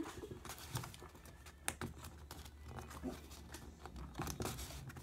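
Faint rustling and scattered light taps of paper being handled and folded.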